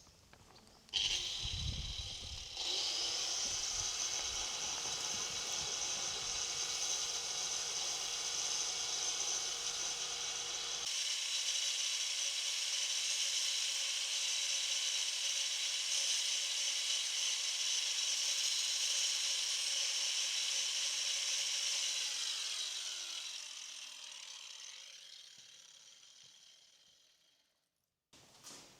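An electric power tool running steadily at high speed, then switched off and winding down, its pitch falling away near the end.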